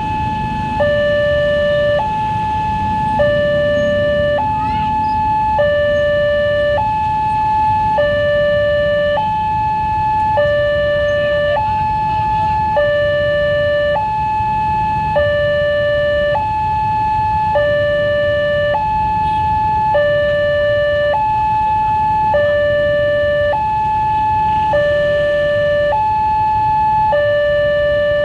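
Railway level-crossing warning siren sounding a steady two-tone alarm, switching between a higher and a lower tone about every second and a quarter, over a low rumble of traffic.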